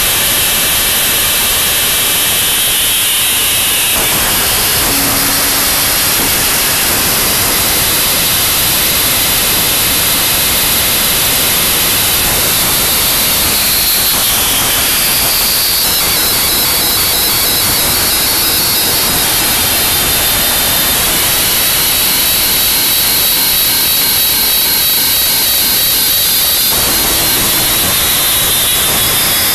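Noise music: a loud, unbroken wall of dense, distorted static, its high hiss bands shifting slowly in pitch over the passage.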